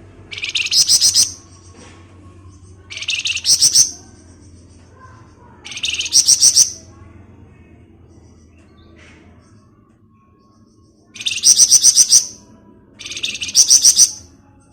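Flamboyan songbird giving its rapid rattling 'ngebren' trill five times, each burst about a second long, with a longer pause in the middle.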